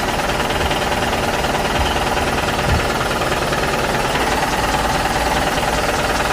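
Steady, dense mechanical rattling of a motorized toy construction vehicle's motor and gears running, with a couple of dull knocks about two and three seconds in.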